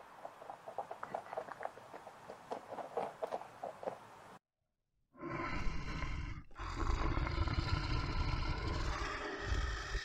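Faint quick clicks for about four seconds, then, after a short silence, a brown bear growling low and steadily.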